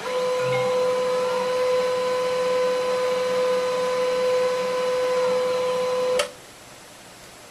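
Printer running: a steady, even-pitched motor whine that stops with a click after about six seconds.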